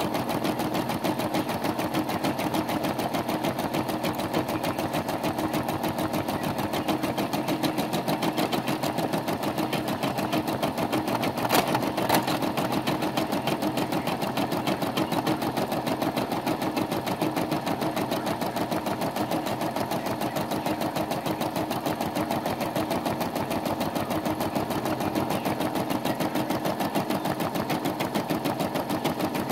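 Brother SE425 embroidery machine stitching steadily, a rapid even rattle of the needle going up and down. Two sharper clicks come about twelve seconds in.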